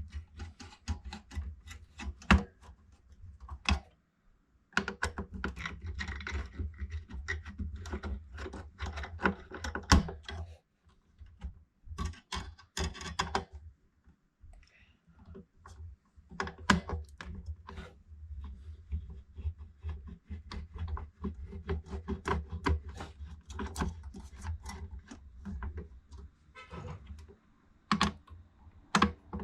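Irregular clicking, tapping and rattling of a screwdriver and small metal and plastic parts as the CPU fan and heatsink screws of a desktop computer are undone, with a few short pauses.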